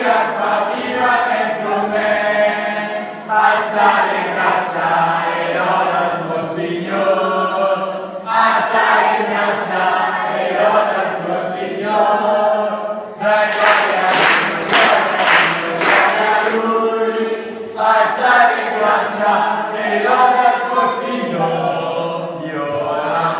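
A large group of children singing a lively Italian praise song together, with a quick run of sharp beats about halfway through.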